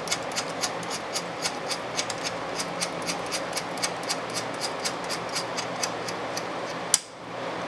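Steady ticking of an IBM LTO1 tape drive's load/unload gear train as its large gear is turned by hand, about four clicks a second, ending in one sharper snap near the end.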